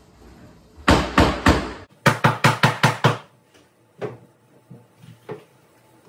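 A series of loud knocks on a hard surface. Four heavy hits come about a second in, then a fast run of about seven knocks, then a few scattered softer knocks.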